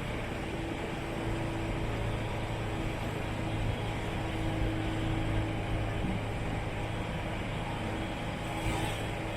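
Steady engine drone and road noise inside a moving bus, with a constant low hum.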